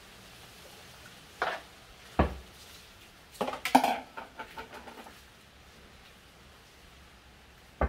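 A few sharp knocks and clatters of containers being handled while a dog is bathed: single knocks about one and a half and two seconds in, then a short burst of clattering a little later.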